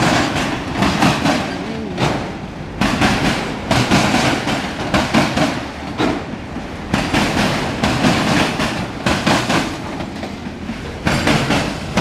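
Norfolk Southern mixed freight train's autorack cars rolling past close by over a railroad diamond crossing. The wheels clack over the rail gaps in repeated clusters every second or so, over a steady rolling rumble.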